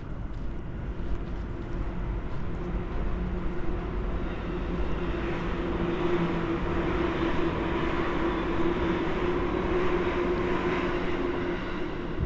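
A vehicle passing close by: a steady hum with a rushing noise that builds over the first few seconds, is loudest in the second half and dies away near the end.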